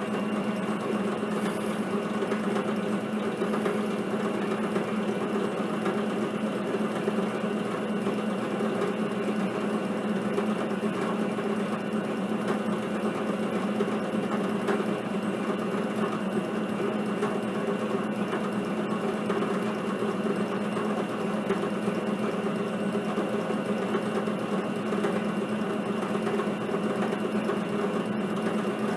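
Drill press running steadily with a steady hum, its diamond-tipped core drill grinding into Petoskey stone to cut a cabochon.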